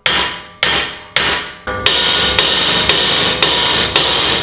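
Steel hammer blows on the front suspension knuckle at the upper ball joint, about two a second, each with a metallic ring that carries on between blows from about two seconds in. The hammering is to shock the ball joint's taper free of the knuckle so the knuckle drops away from the control arm.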